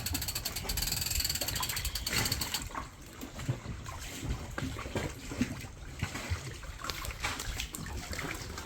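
Anchor windlass hauling in chain with rapid, even clicking, which stops abruptly about a third of the way through. Irregular trickling and splashing of water follows.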